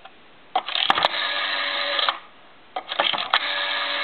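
GTE Automatic Electric Starlight rotary dial wound round with a few clicks and let go, twice, each return a steady buzzing whir lasting about a second, almost like a meat cutter. The second whir is still running at the end. This harsh governor whir is typical of Automatic Electric dials and unlike a Western Electric dial.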